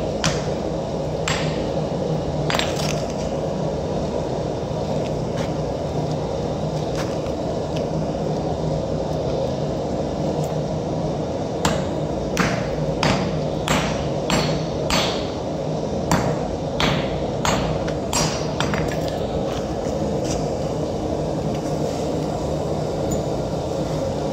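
Hand hammer striking a red-hot high-carbon steel axe head on an anvil: a couple of blows near the start, then a run of about a dozen ringing strikes in the middle, over a steady low drone.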